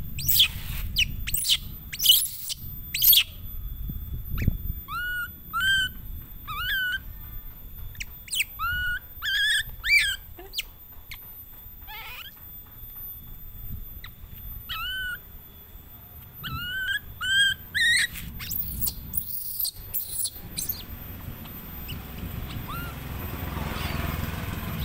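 Baby macaque whimpering: short, high, plaintive cries that rise and curl down, repeated in clusters, with a few sharper shrieks in the first few seconds.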